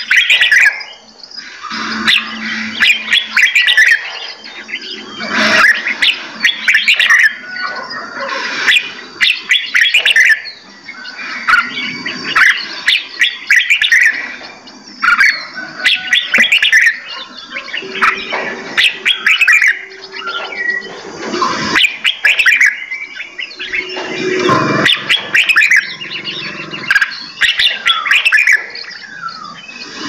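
Several caged songbirds singing and chirping over one another, a busy, continuous mix of whistled and warbled phrases broken by sharp clicks.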